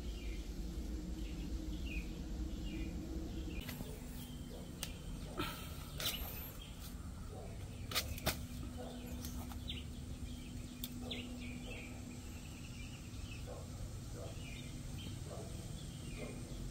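Small birds chirping in short repeated calls over a steady outdoor background hum, with a few sharp clicks about halfway through.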